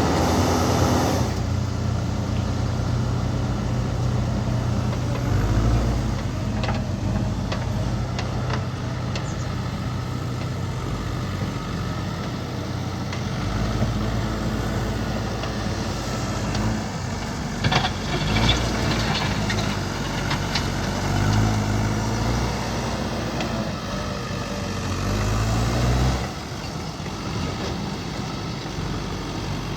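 JCB backhoe loader's diesel engine running under working load, its note shifting as the hydraulics work, with scattered knocks and clanks. The engine eases off about four seconds before the end.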